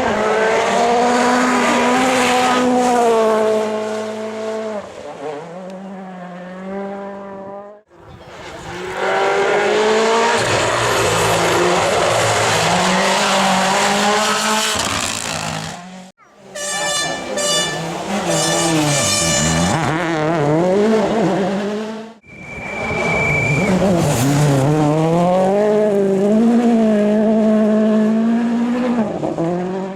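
Rally car engines revving hard, their pitch climbing and dropping through gear changes, in four separate passes that cut off sharply one after another. A brief high whistle sounds during the last pass.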